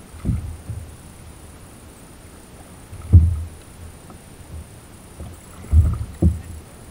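Water lapping against the hull of a fishing kayak in a choppy sea, broken by four dull low thumps, the loudest a little after three seconds in.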